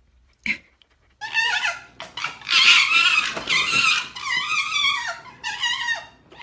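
Pet red foxes play-fighting, giving high-pitched, wavering chattering squeals in a string of bursts that starts about a second in.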